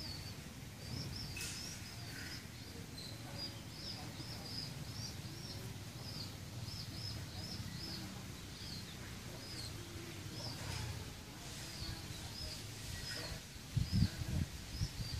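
A bird chirping over and over in short high chirps, about two a second, over a low steady rumble. A few low bumps come near the end.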